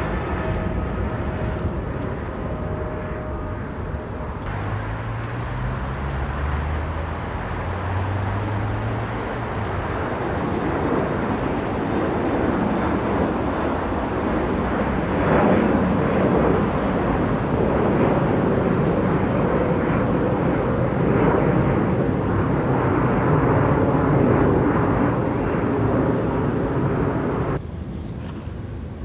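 Jet airliner passing, a broad rumble of engine noise that builds over several seconds and stays loud. It drops suddenly near the end.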